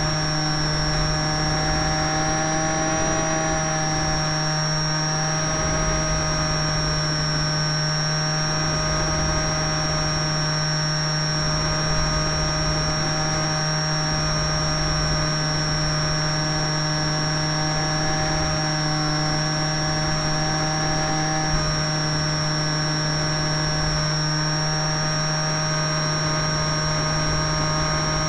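RC model canard airplane's motor and propeller running steadily in flight, heard from on board: a constant drone with a high whine, over low wind rumble from the airflow.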